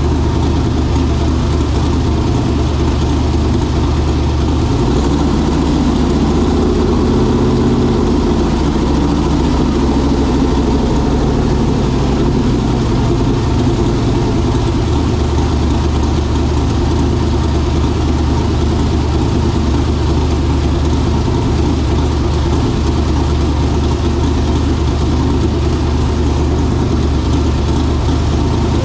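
Twin-turbo engine of a Mercury Zephyr idling steadily in a freshly built engine's first heat cycle. The idle note shifts between about five and twelve seconds in, then settles back.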